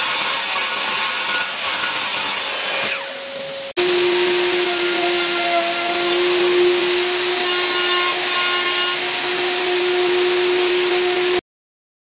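Table saw cutting a laminate-faced board, its blade then winding down with a falling whine. A router in a router table then runs with a steady whine as it cuts a groove in a panel, and cuts off suddenly near the end.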